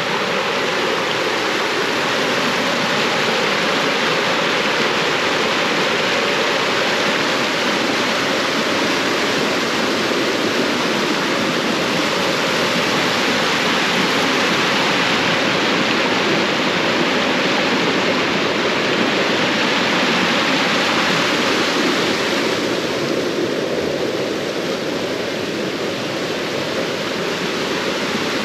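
Stream of running water rushing loudly and steadily, easing slightly about 23 seconds in.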